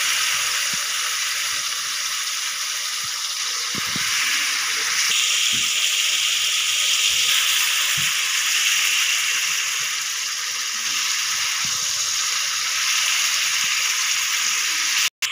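Marinated pork slices sizzling steadily in hot oil in a wok, with a few faint knocks. The sizzle cuts off abruptly near the end.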